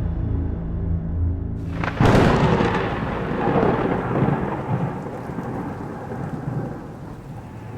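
A thunderclap: a sudden crack about two seconds in that rolls off into a long rumble fading over several seconds, over a low steady musical drone.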